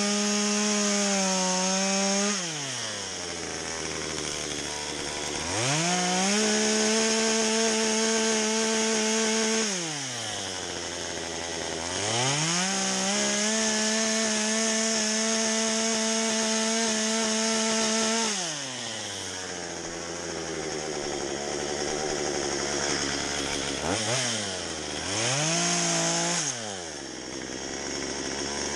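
Two-stroke Stihl chainsaw with a carving bar, cutting into a spruce log. It runs at full throttle, drops to idle about two seconds in, then revs up again for two more long cuts of four to six seconds each, falling back to idle after each. Near the end come two short blips of the throttle.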